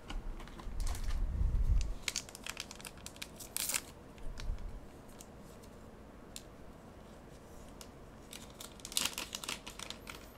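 Foil trading-card booster pack wrapper being torn open and crinkled in the hands, in scattered crackles with a longer rasp about a third of the way in and another cluster near the end. A low rumble of handling runs through the first two seconds.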